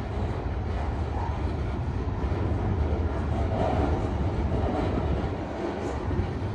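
CSX freight train's cars rolling past, a steady rumble of steel wheels on the rails.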